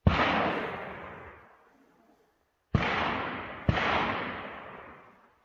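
Three shotgun shots: one at the start, then two close together about two and a half seconds later, each followed by a long echo dying away.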